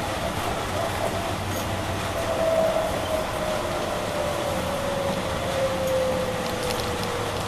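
Inside a Bombardier Innovia APM 100 automated people-mover car: steady running noise under an electric drive whine that falls slowly in pitch as the shuttle slows on its approach to the station.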